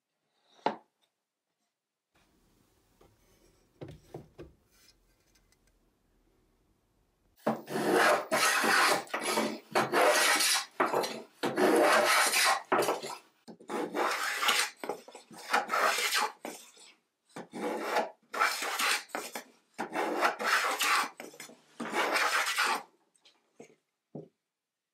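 Stanley Handyman H1247 block plane shaving the edge of a softwood frame piece: repeated strokes, about one a second, starting some seven seconds in. This trims the inside edges of the frame pieces to fit.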